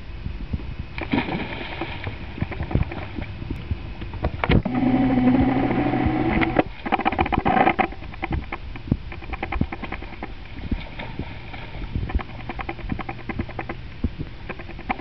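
A child jumping into a swimming pool, then splashing and paddling through the water with many short slaps and sloshes. A held pitched sound rises over the splashing for about two seconds in the middle and is the loudest part.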